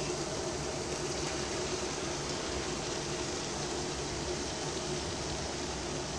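A steady, even hiss with a faint low hum: kitchen background noise, like a fan running. There are no distinct clatters or knocks.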